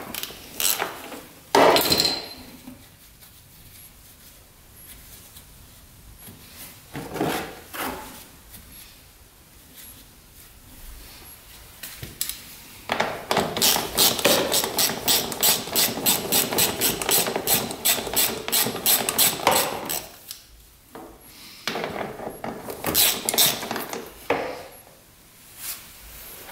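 Hand socket ratchet clicking, in a fast even run of about four to five clicks a second for several seconds midway, with scattered knocks and tool clatter before and after; the ratchet is backing out the engine's oil drain plug to drain the oil.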